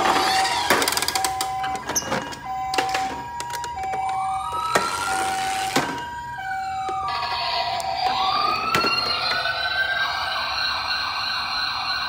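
Electronic sirens of toy ambulances: a two-tone hi-lo siren of alternating high and low tones is joined about four seconds in by a rising and falling wail, which takes over about seven seconds in. Plastic clicks and knocks from the toys being handled come through, most of them in the first three seconds.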